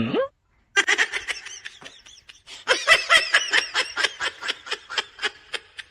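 Someone laughing in a long run of short, quick bursts that grows denser in the second half, after a short swooping sound at the very start.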